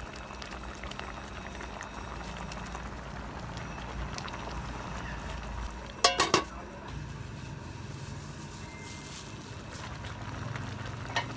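A pot of soup boiling hard over a charcoal fire, a steady bubbling. About six seconds in, the pot's metal lid clanks and rings a few times in quick succession as it is handled.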